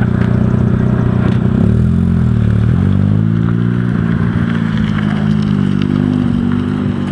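Mazda RX-7's rotary engine running, its pitch dipping and then climbing back up between about two and three and a half seconds in, then holding steady.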